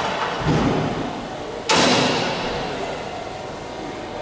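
Short bursts from a hand-held air tool working on the aluminium door-frame skin, each starting sharply and tailing off. There is a small one about half a second in and a louder one just under two seconds in.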